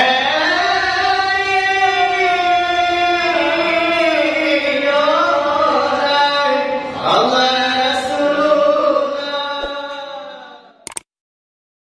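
Salawaik dulang singing: long, held, ornamented chanted notes that bend in pitch, fading out about ten seconds in, with a couple of sharp clicks just before the end.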